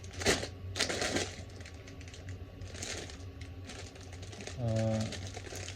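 Small plastic Lego pieces clicking and clattering as they are handled and sorted, with the sharpest rattles in the first second or so.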